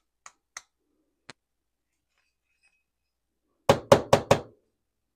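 A few faint clicks as the aluminium oil pump housing of a 1972 Honda CB750 is handled, then four quick, loud knocks in a row near the end as the housing is rapped against the plastic parts tray.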